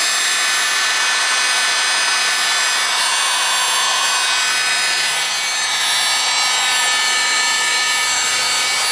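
Electric heat gun running steadily, its fan blowing a loud, even hiss with thin steady whining tones, shrinking heat-shrink crimp connectors on wiring to seal them watertight.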